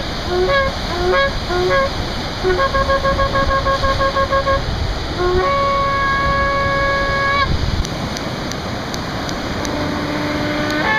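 Ram's-horn shofar blown in a sequence of calls: a few short blasts, then a quick run of staccato pulses, then one long held blast. Near the end a second, lower-pitched shofar starts a blast.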